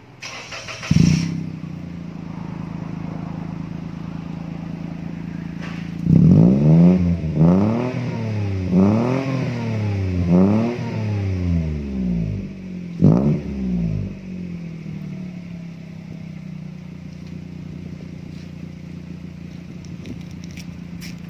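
Perodua Axia's 1.0-litre three-cylinder engine, heard at the tailpipe through a JS Racing-style aftermarket muffler. It fires up about a second in and idles, then is revved in five quick blips, the fourth and fifth with a short gap between them, up to about 5000 rpm, before settling back to a steady idle.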